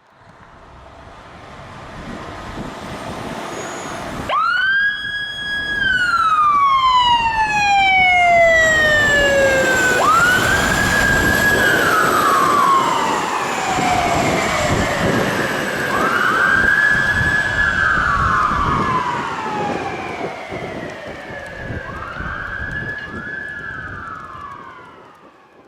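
Whelen electronic siren on a 2015 Pierce Dash CF ladder truck sounding the alternate wail. About four seconds in it jumps sharply up, holds the high note briefly, then slides slowly down, and the cycle repeats about every six seconds. A low truck-engine rumble runs underneath and grows louder over the first few seconds before the siren starts.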